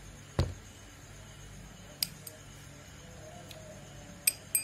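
Metal spool and body of a Shimano Ultegra 4000XG spinning reel being handled: a soft knock at the start and a few light clicks. Near the end come quick, sharp metallic clicks with a slight ring as the spool is fitted back onto the reel's shaft.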